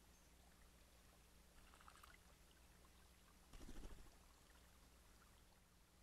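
Blue jay bathing in a shallow stream pool: faint splashing about two seconds in, then a short, louder flurry of wingbeats and splashing just before four seconds as it flies out of the water. A faint trickle of stream water and a steady low hum lie underneath.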